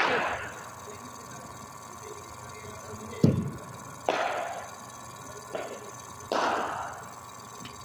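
Cricket net practice with a bowling machine: a sharp knock just past three seconds in, then two thuds that trail off in a hiss, about four and six seconds in.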